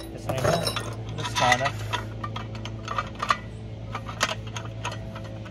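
Loose bolts, nuts and washers clinking as a hand rummages through them in a small cardboard hardware box, with the steel frame pieces of a Rabaconda tire changer knocking and clanking as they are handled. A steady low hum runs underneath.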